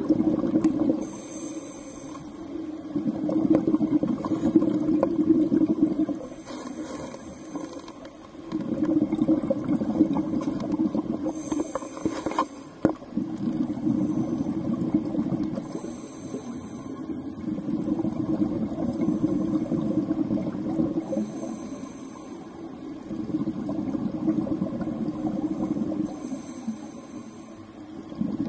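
A scuba diver breathing through a regulator underwater: a short hiss of inhaled air, then a few seconds of rushing, bubbling exhaust, repeating about every five seconds.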